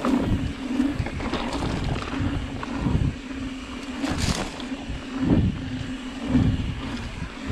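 Mountain bike rolling along a dirt singletrack: wind buffeting the body-mounted camera's microphone and tyres rumbling over the dirt, with a steady low hum that drops out briefly now and then. A sharper rush of noise comes about four seconds in.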